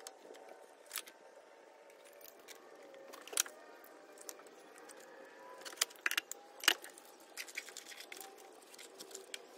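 Scattered light metallic clicks and clinks of hand tools and parts being handled in a car's engine bay, with a few sharper knocks about three and a half seconds in and again around six to seven seconds in.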